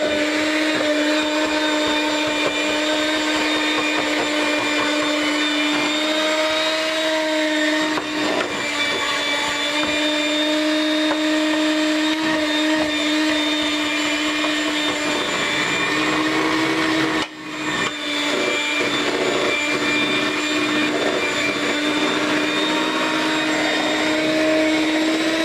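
Electric hand mixer running steadily as it beats cake batter, with a constant motor whine that drops out for a moment about two-thirds of the way through.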